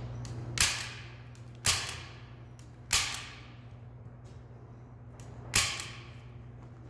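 Staple gun firing four times, sharp snaps with the last after a longer pause, driving staples through duct tape to hold a foam target's backstop in place.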